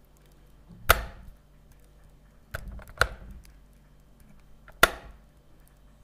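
On/off power switches being flipped: three sharp clicks about two seconds apart, the middle one preceded by a softer knock.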